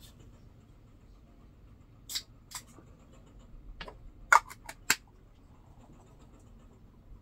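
Handling sounds of a sleeve being pushed up and body cream being worked onto a forearm: a few short, crisp clicks and rustles, the loudest cluster about four and a half seconds in.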